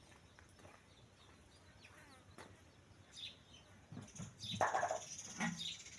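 Birds chirping in short, scattered calls. About four and a half seconds in, a louder, brief noisy sound covers them.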